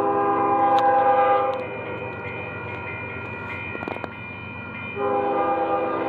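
Union Pacific AC45CCTE locomotive UP 5534 sounding its air horn, a chord of several notes, for a road crossing as the train approaches: a long blast that stops about a second and a half in, then a second blast starting about five seconds in. The low running of the train continues under and between the blasts.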